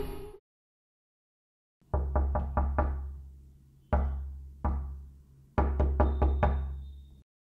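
Background music cuts off, then someone knocks on a door: a quick run of about five knocks, two single knocks, then another quick run of about five.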